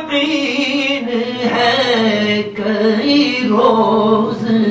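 A man's solo voice chanting a naat, drawing out long, wavering held notes between lines of the verse.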